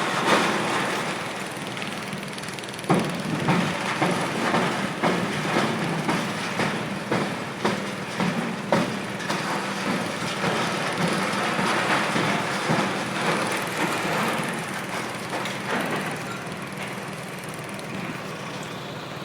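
Heavy demolition machinery running steadily while concrete of a building's floor ceiling is broken up, with repeated irregular cracks and crunches of breaking debris.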